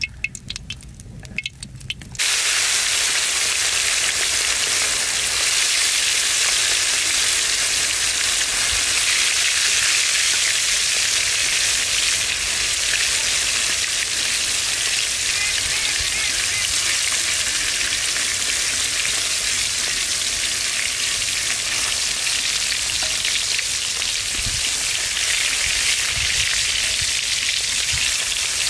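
A wood fire crackling for about the first two seconds, then pieces of tilapia deep-frying in hot oil in a wok: a loud, steady sizzle.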